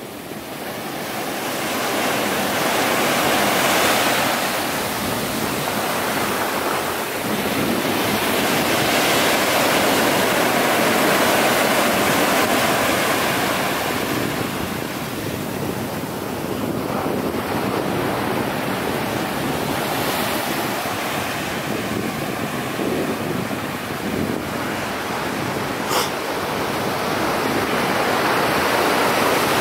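Ocean surf breaking on the shore, a steady rushing wash that swells and eases slowly, with one sharp click near the end.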